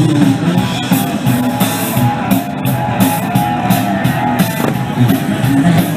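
Rock music with drums and guitar, with a steady beat.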